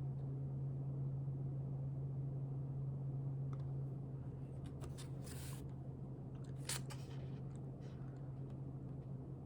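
A steady low hum with a few short, soft paper rustles and one light click in the middle, from a book being handled and its page turned.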